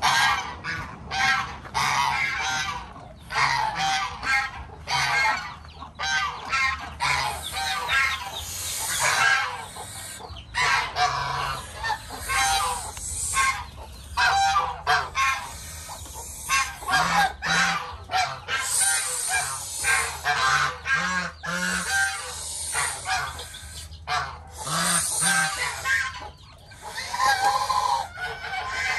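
Domestic geese honking over and over, many calls overlapping with hardly a pause.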